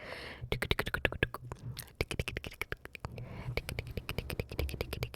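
Close-miked ASMR mouth sounds: a rapid run of wet and dry tongue and lip clicks and pops, many a second.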